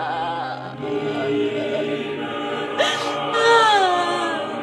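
Background music with held choral vocals, one voice sliding downward a little past the middle.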